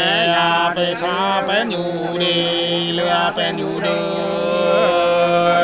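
Two men singing sli, the Nùng people's unaccompanied paired folk song, in long held notes that bend and waver in pitch, with a short breath a little past halfway.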